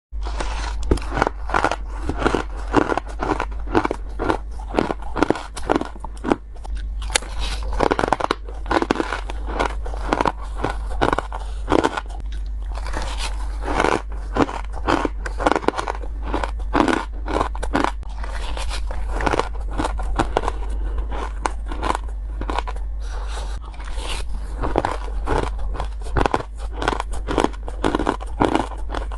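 Crunchy crushed ice being bitten, a quick irregular run of close-up crunches several times a second, over a steady low hum.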